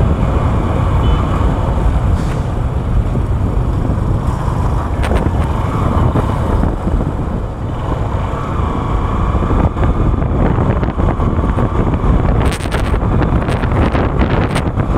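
Hero Hunk motorcycle's single-cylinder four-stroke engine running at road speed, under a steady low rumble of wind on the microphone. A few short sharp clicks come near the end.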